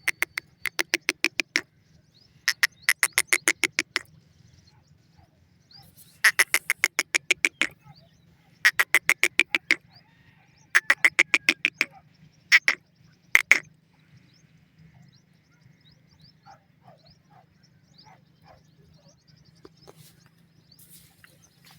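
Grey francolin calling: loud series of rapid harsh notes, about six a second, in bursts of a second or two that repeat every couple of seconds and stop about two-thirds of the way through, leaving only faint scattered sounds.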